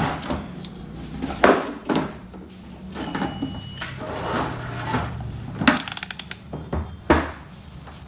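Handling noise from multimeter test probes being moved over an amplifier's circuit board: scattered knocks and clicks, including a quick rattle of ticks past the middle, over a low steady hum. A short high beep sounds about three seconds in.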